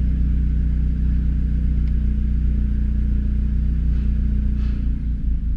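Seat Leon Cupra's 2.0 TFSI turbocharged four-cylinder engine idling steadily. It runs smoothly with no misfire pops: the cylinder-1 misfire has been cured by reconditioning the fuel injectors.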